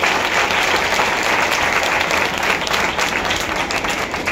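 A congregation applauding: many hands clapping together in a dense, steady patter.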